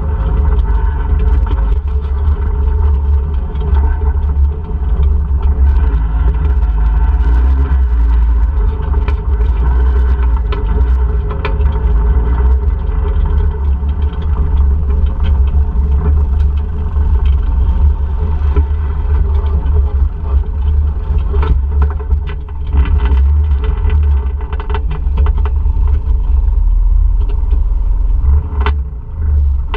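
ATV engine running while riding, under a heavy low rumble, with scattered knocks and rattles throughout.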